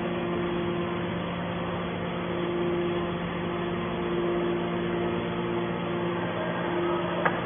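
Hydraulic scrap baler's motor and pump running with a steady hum, with a single short click near the end.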